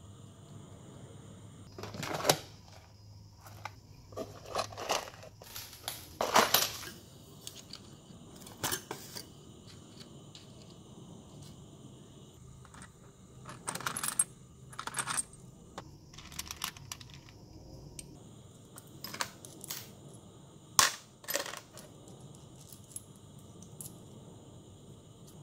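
Small steel parts clinking and clicking as they are handled: a sprocket fitted onto a gear motor's shaft and a bolt with washers and a nut. The clinks come irregularly, a few louder than the rest, over a faint steady high hum.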